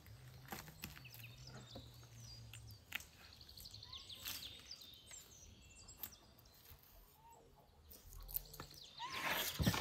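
Birds chirping in the background while a knife cuts spit-roasted lamb on a wooden board, with scattered clicks and knocks. A louder burst of noise comes near the end.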